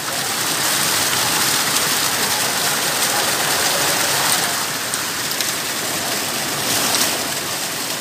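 Steady rush of a mountain stream cascading over rocks: an even, unbroken wash of water noise.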